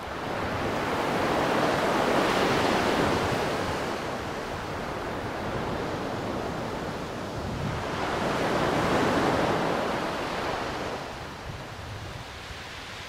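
Small sea waves breaking and washing up a pebble beach, the surf rising and falling twice about seven seconds apart, with some wind on the microphone.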